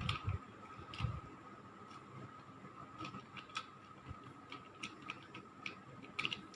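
Plastic 3x3 Rubik's cube being turned by hand: faint, irregular clicks as its layers are twisted.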